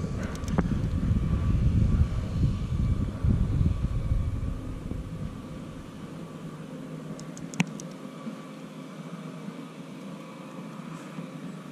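Wind buffeting the microphone, a low rumble that is strong for the first few seconds and eases about halfway through. A few sharp clicks come through, the clearest about two-thirds of the way in.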